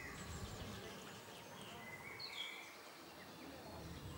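Quiet open-air ambience: a few short bird chirps about two seconds in, over a low steady background rumble.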